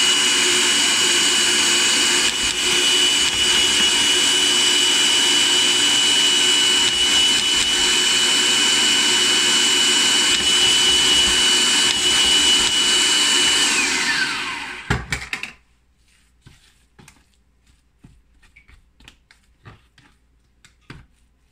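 Food processor motor running steadily with a high whine as it blends a thick chickpea falafel mixture. About fourteen seconds in it is switched off and the whine falls as the blade spins down. Faint taps and scrapes follow as a spatula works the mixture in the plastic bowl.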